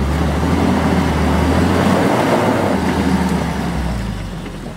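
UAZ Patriot SUV's engine working hard under load as it climbs a steep clay slope, its tyres churning and throwing dirt. It grows louder toward the middle, then fades near the end as the vehicle gets over the climb.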